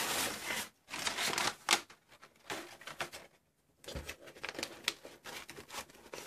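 A cardboard and paper mail package being handled: irregular bursts of rustling and crinkling with sharp clicks and taps, and a brief pause a little past the middle.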